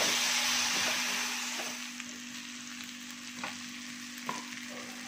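Chopped onion, tomato and green chilli sizzling in coconut oil in a metal kadai while a wooden spatula stirs them, with a few scrapes and taps of the spatula against the pan. The sizzle is loudest in the first second or so, then settles lower.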